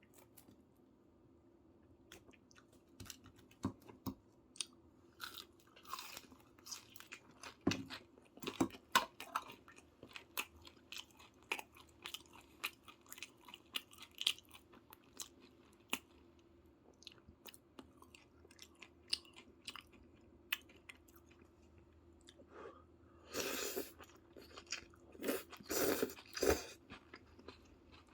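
Close-miked eating sounds of a person chewing and biting soy-braised chicken (jjimdak): irregular crunches and small clicks, with a few louder, longer crunches near the end.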